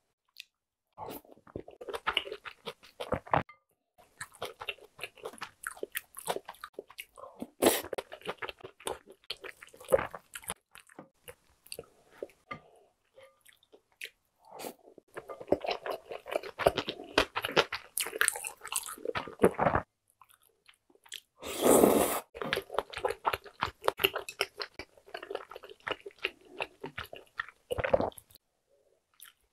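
Close-miked chewing and biting of spicy tteokbokki and rice burger, coming in stretches with short pauses and laced with quick wet clicks and crunches. A louder, noisier burst comes about two-thirds of the way through.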